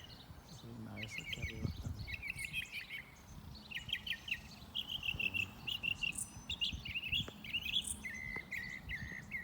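Small songbirds chirping and singing in trees: short, quick runs of high chirps, one after another, from more than one bird.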